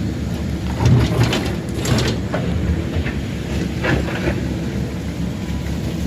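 Heavy earthmoving machine's engine running steadily, with rough scraping, clattering bursts about a second in, around two seconds and near four seconds as it works the pond mud.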